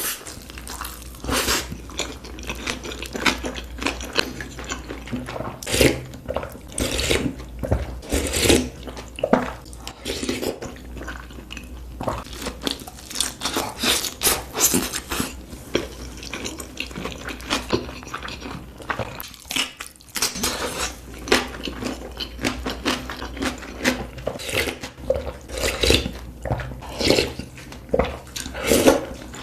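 Close-up mouth sounds of someone eating hotpot food: repeated chewing, biting and crunching, in quick irregular strokes.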